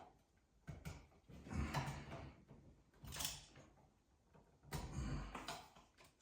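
A few short, faint bursts of clicking and scraping: copper wiring and a GFCI receptacle being handled and worked at an electrical wall box.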